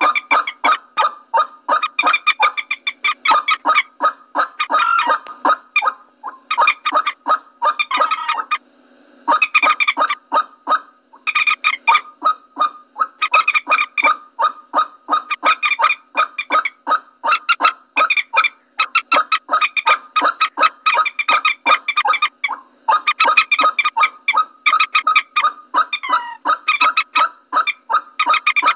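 Moorhen calls played as a lure recording: rapid runs of short, sharp repeated notes, broken by brief pauses.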